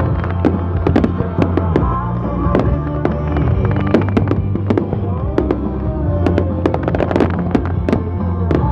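Fireworks display: a steady run of sharp bangs and crackles, several a second, with music playing underneath.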